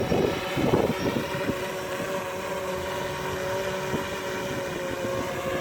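DJI Phantom 4 quadcopter's motors and propellers humming steadily in flight, with wind buffeting the microphone, most in the first second.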